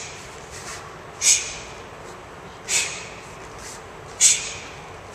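Taekwondo practitioner's sharp hissing exhalations, one with each block or strike of the pattern: three short bursts about a second and a half apart.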